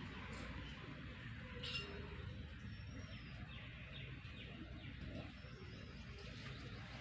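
Faint bird chirps, a few short calls over a low steady background rumble, with a couple of light clicks in the first two seconds.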